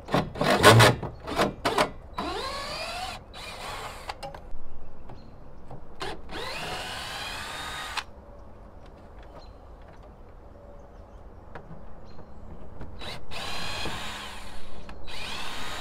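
Cordless drill backing out the screws of the metal bands around a plastic barrel, in several short runs with the motor pitch rising as it spins up. A few sharp knocks come near the start.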